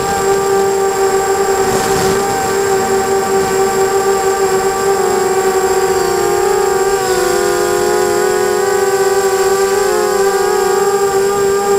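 Electric motors and propellers of a 250-size racing quadcopter whining steadily, heard from its onboard camera. Several close pitches beat together, shifting a little as the throttle changes about six seconds in and again near ten seconds.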